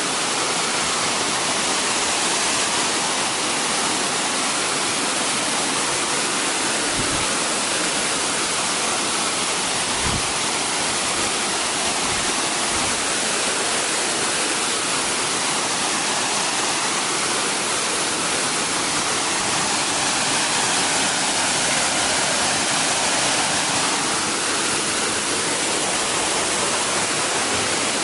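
Waterfall pouring and splashing, a steady, unbroken rush of falling water.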